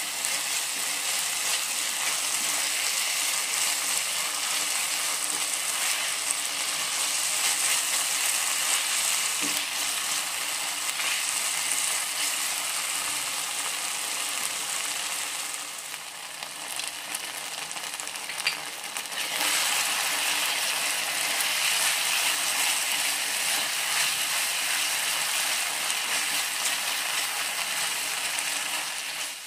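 Chopped vegetable and cheese pizza-roll filling sizzling in a non-stick frying pan while a silicone spatula stirs it. A steady hiss that drops in loudness for a few seconds around the middle, then comes back up.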